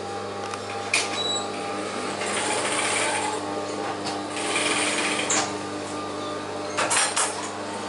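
Industrial sewing machines stitching in two short runs of about a second each, over a steady motor hum, with a few sharp clicks about a second in and near the end.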